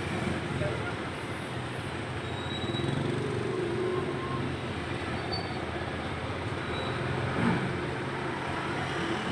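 Street traffic noise: small motorcycle engines running and moving past at low speed, with a steady engine hum.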